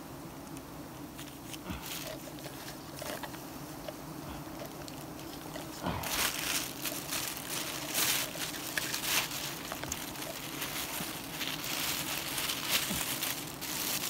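Bees buzzing steadily around a wild honeycomb. From about six seconds in, a clear plastic bag crinkles loudly and irregularly as it is worked around the comb.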